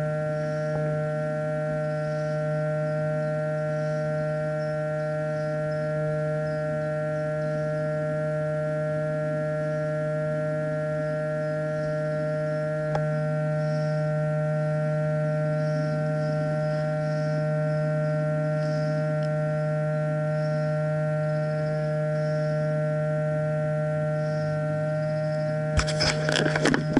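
A steady, unchanging hum made of several fixed tones, with faint high chirps above it. A quick run of sharp clicks comes near the end.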